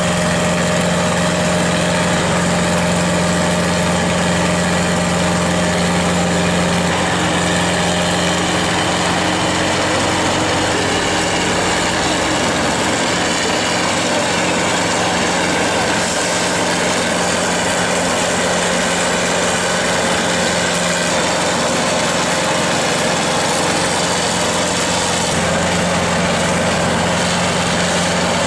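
Heavy-equipment engine running steadily at an even speed, a constant drone with no revving.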